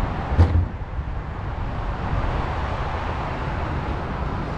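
Steady city traffic noise with a low rumble, and a single short knock about half a second in.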